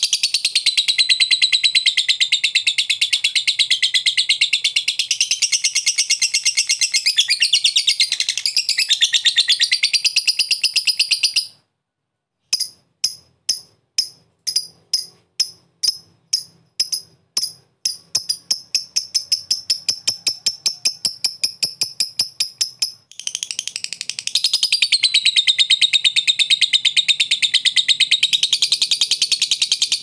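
Fischer's lovebird in long 'ngekek' song: a fast, unbroken, high chattering trill. About 11 seconds in it stops for a moment, then restarts as separate sharp chirps that speed up into a rapid trill, and becomes continuous chatter again at about 23 seconds.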